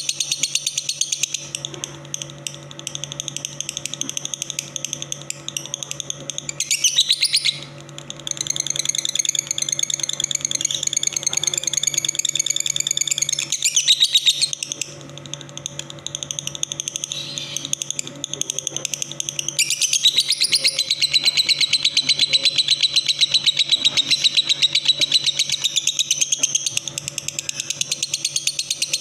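A caged songbird singing long, rapid chattering trills. It dips briefly about 7 seconds in, is weaker from about 15 to 20 seconds, then comes back strongly. A steady low electrical hum runs underneath.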